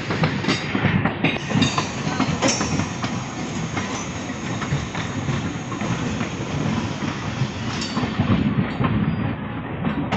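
Trains rolling at speed over points and rail joints: a steady wheel rumble broken by irregular sharp clacks, with the wheels clattering through the crossings. It is heard from the doorway of a moving coach, with an EMU local running on the next track.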